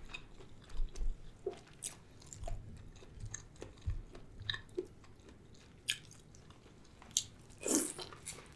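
Close-miked eating sounds: biting and chewing corn on the cob, as scattered short mouth clicks and small wet noises, with one louder mouth sound near the end.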